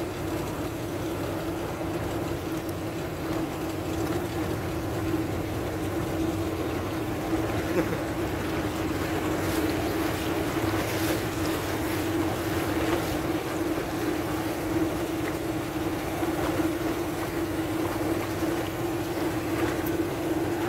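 A boat engine running steadily on the water with a constant hum, along with rushing water and wind on the microphone.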